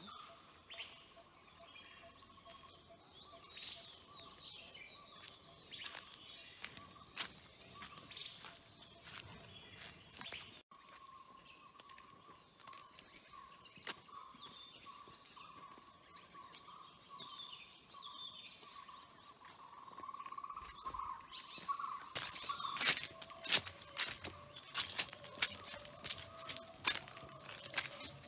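Small wild birds chirping outdoors, with repeated short falling chirps clustered in the middle, over a steady high tone. Near the end, a run of sharp clicks and crackles gets louder and denser.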